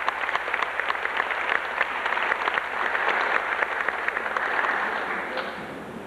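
Audience applauding, many hands clapping at once, fading off near the end.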